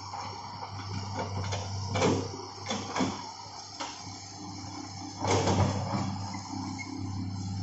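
Hitachi hydraulic excavator's diesel engine running steadily as the machine works and swings, with a few sharp clanks and knocks from the machine, about two, three, four and five seconds in, the loudest about five seconds in.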